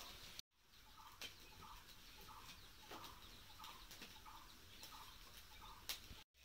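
Near silence, with a faint series of short animal calls repeating about twice a second and a few soft clicks as sticks are pushed into the wood cooking fire.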